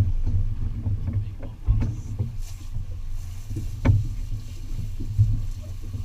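Steady low rumble aboard a small fishing boat at sea, with a low thump about two seconds in and a sharper knock about four seconds in.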